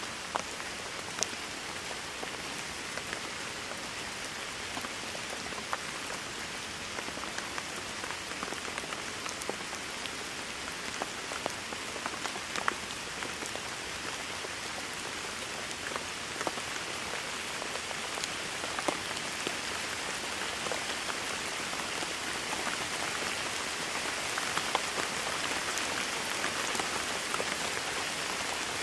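Steady rain falling on a surface, with individual drops ticking sharply here and there through the hiss; it grows a little louder in the last third.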